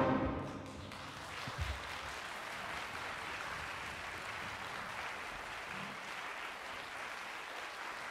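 The final chord of a wind orchestra rings away in the hall in the first second, then an audience applauds steadily. There is a brief low thump about a second and a half in.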